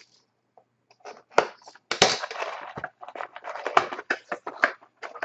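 Clear plastic shrink-wrap being cut and torn off a sealed trading-card box, crinkling. A sharp snap comes about a second in, then dense, irregular crackling.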